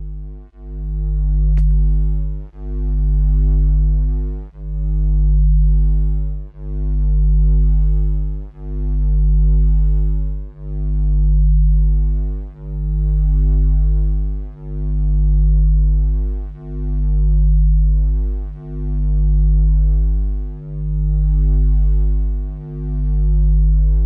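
Slow synthesizer drone music: a deep sustained bass chord that swells and fades in even pulses about every two seconds.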